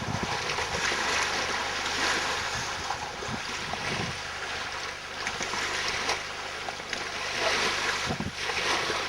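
Wind blowing across the microphone: a steady rushing noise with a few low buffets.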